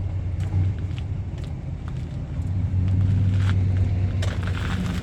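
A steady low engine hum, like a diesel idling, with scattered short metallic clinks and taps from hand tools working on battery terminals, several in a cluster near the end.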